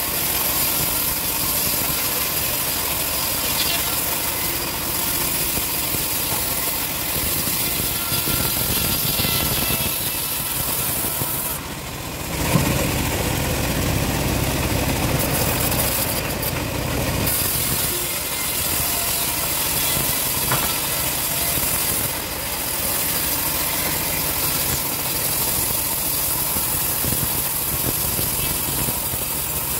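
Home-built sawmill bandsaw running steadily under engine power, with a brief dip about twelve seconds in after which it runs with more low rumble.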